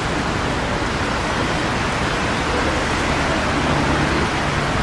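Strong wind rushing across the microphone, a loud steady roar of noise. A faint low hum joins about three and a half seconds in.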